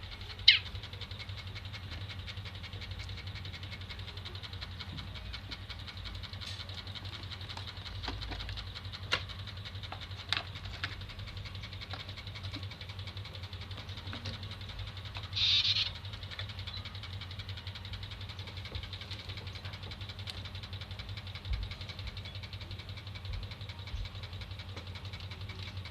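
Caged canaries giving only occasional short high chirps: a sharp one about half a second in and a longer one about halfway through. A steady low hum and a few faint clicks run underneath.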